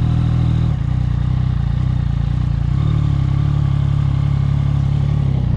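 Road motorcycle engine running at low, steady revs over rough ground, its note shifting slightly about a second in and again near halfway.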